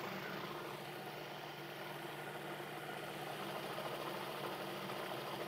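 Food processor running steadily, its motor humming evenly as it purées a thick edamame hummus.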